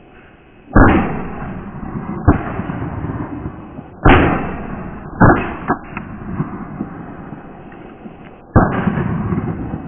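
Six shotgun shots fired at a flock of flying ducks, irregularly spaced, the first about a second in and the last near the end, each trailing off over a second or so.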